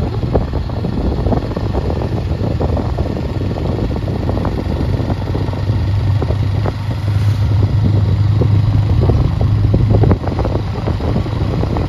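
Engine and road noise of a moving vehicle heard from on board: a steady low engine hum with scattered rattles and bumps. The hum grows louder about eight seconds in, then drops suddenly about two seconds later.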